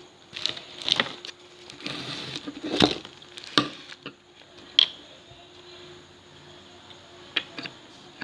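Small plastic packets and containers being handled on a table: a string of sharp taps and clicks with a short rustle of plastic bags in between.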